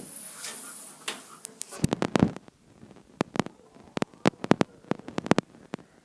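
Irregular sharp clicks and taps, starting about two seconds in and coming several a second.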